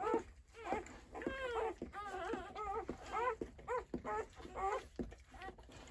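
Newborn puppies crying in a string of short, high, rising-and-falling squeaks, several a second, with one longer whine about a second and a half in.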